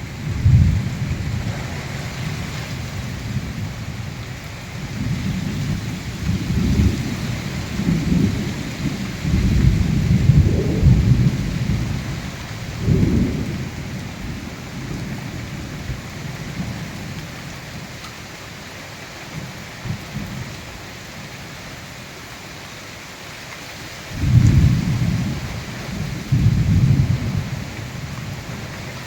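Heavy rain hissing steadily during a cyclone, with low rumbles that swell and fade several times: a cluster in the first half and two strong ones near the end.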